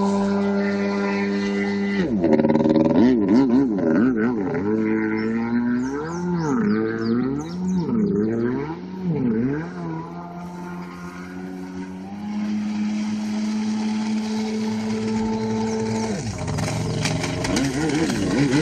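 1995 MasterCraft Wetjet Duo ZX300 personal watercraft engine running under way. Its pitch holds steady, then rises and falls about once a second for several seconds and grows fainter. It comes back steady and louder, then wavers again near the end.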